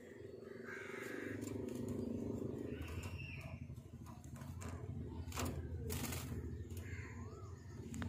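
Caged parakeets making a few short, soft calls over a steady low background rumble, with a sharp click about five seconds in.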